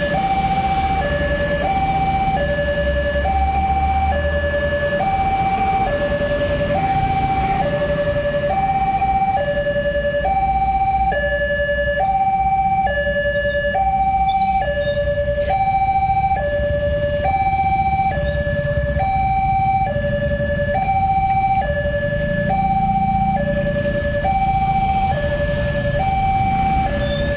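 Railway level-crossing warning alarm from the horn loudspeaker on the crossing post. It sounds a steady two-tone alternation, a higher note then a lower one, each cycle lasting about a second and a half, warning that a train is approaching. Motorbike engines run underneath, louder for the first few seconds.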